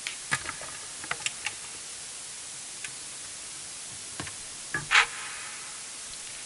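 Steady hiss of room noise with scattered clicks and knocks as an alto saxophone is handled and lifted into playing position. The loudest is a brief noise about five seconds in.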